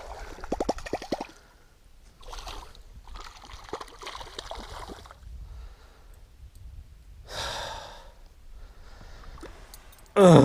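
A man's heavy sighs and breathing, with a loud groan of frustration just before the end.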